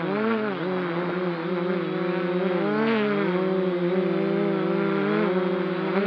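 Multirotor drone's motors and propellers humming steadily, several pitches sliding up and down and crossing one another as the rotor speeds change in flight.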